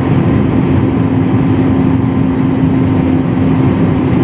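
Airliner cabin noise: a steady, loud drone of jet engines and airflow heard from inside the passenger cabin, with one steady hum running through it.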